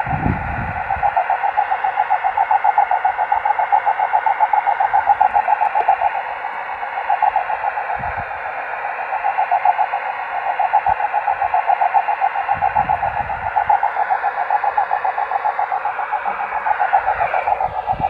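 Steady mid-pitched carrier tone from a microwave amateur radio receiver's speaker, with a rapid rough flutter: the 'auroral' sound of a signal arriving by rain scatter off a cloud, heard while the dish is being peaked on it. A few faint knocks from handling the dish.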